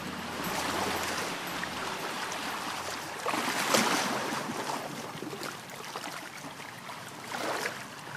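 Rushing, rustling noise of movement close to the microphone, louder about three and a half seconds in, cutting off suddenly at the end.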